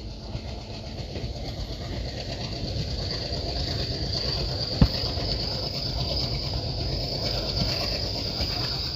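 Passenger train running on the track: a steady rumble of wheels on rails that grows slowly louder, with one sharp click about five seconds in. A steady high chirring, typical of insects, runs underneath.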